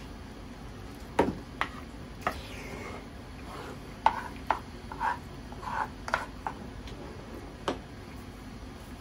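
Wooden spoon knocking and scraping against a bowl of curry and rice: about ten short clicks and clunks at irregular intervals, the loudest a little over a second in and about four seconds in, over a steady low hum.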